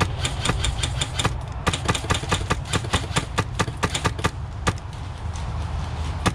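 Airsoft gunfire: a quick run of sharp shots, about six a second, that stops about three-quarters of the way through and starts again near the end, over a steady low rumble.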